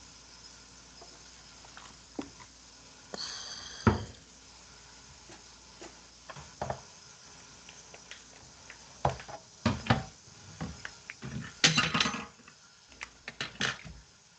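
Kitchen clatter: dishes, pans and utensils knocking and clinking. A brief high squeak ends in a sharp knock about four seconds in, and a busier run of clinks and knocks follows in the second half.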